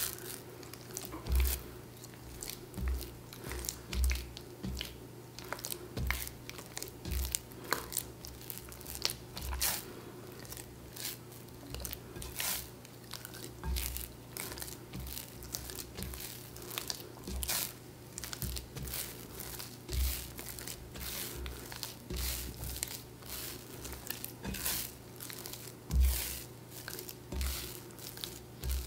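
Sourdough being kneaded by hand in a mixing bowl: irregular wet squelches and tearing sounds as the sticky dough is squeezed, stretched and pressed, with soft thumps of the dough against the bowl.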